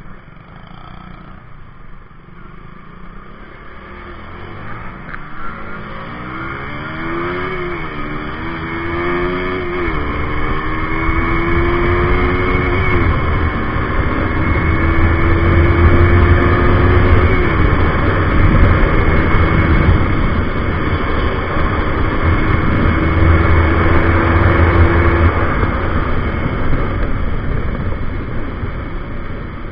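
Single-cylinder sport motorcycle accelerating hard from low speed. The engine note climbs and drops back at each of four upshifts, then holds steady at speed under a growing rush of wind, easing off near the end.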